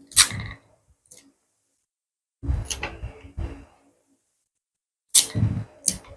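Paper sewing-pattern sheets being folded and pressed flat by hand on a glass tabletop: several bursts of paper rustling and crinkling, each opening with a sharp click or tap, with short silences between.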